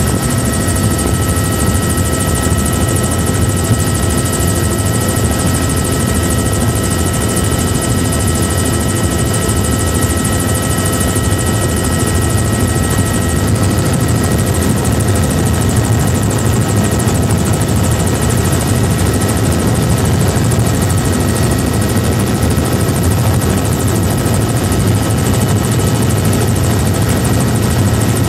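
Helicopter in steady flight heard from inside the cabin: a loud, even rotor and engine drone with a steady high whine over it.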